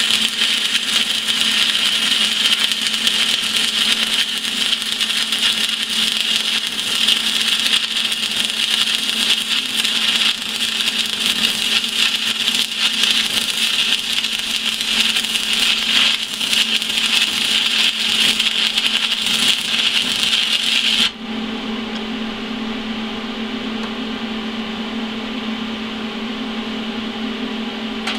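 Stick-welding arc of a 6011 electrode on steel plate, run on DC from an AHP Alphatig 200X inverter welder: a steady, loud crackling hiss as the rod burns smoothly. The arc stops abruptly about three-quarters of the way through, leaving a steady low hum.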